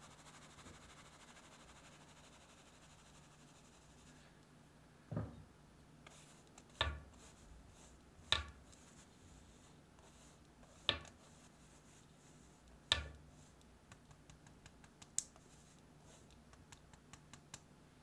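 Flour and cocoa powder being sifted through a fine-mesh metal sieve: a faint hiss at first, then about six sharp knocks on the sieve spaced a second or two apart, and light scratchy ticks of a spatula working the powder through the mesh near the end.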